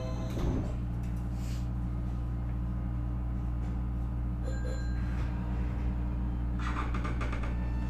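Inside a Nankai 8300 series electric train car: a steady low hum from the train. A brief tone sounds about halfway through, and a cluster of short clicks comes near the end.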